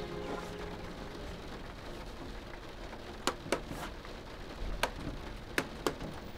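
Old CRT television being handled: several sharp clicks over a steady faint hiss, then a louder click at the very end as the set switches on.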